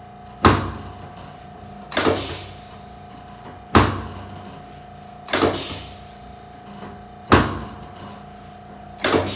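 Chiropractic drop table clunking six times, about every second and a half to two seconds, as a padded section drops under a series of thrusts, each knock ringing briefly.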